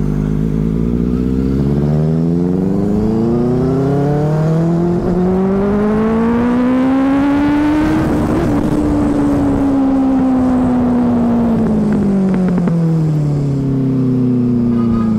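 Motorcycle engine pulling steadily, its pitch rising smoothly for about eight seconds as the bike accelerates, then falling gradually as the rider eases off and slows.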